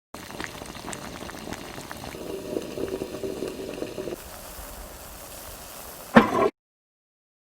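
Sound effect of liquid boiling: a steady bubbling hiss with small pops and crackles, swelling a little in the middle, with a sudden loud burst near the end before it cuts off.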